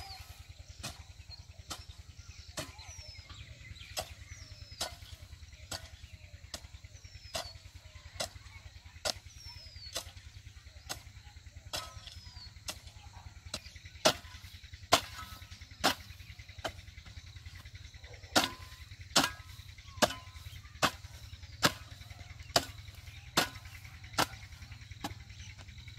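A hoe striking and chopping into dry, hard field soil in a steady rhythm of about one blow a second, the blows much louder about halfway through. A bird repeats a short falling whistle over the first part.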